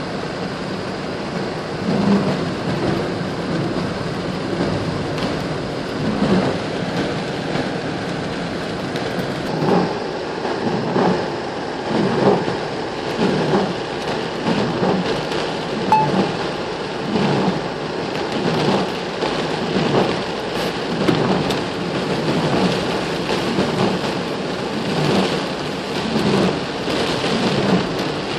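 Steady rain falling, a constant hiss. From about ten seconds in, a short low knock repeats about once a second over it.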